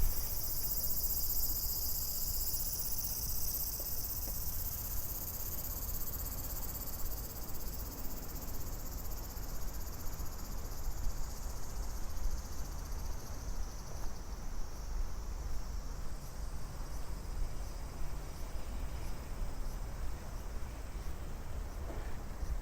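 Cicadas singing in a dense, shrill chorus, loudest at first and fading over the first several seconds, over a low steady rumble.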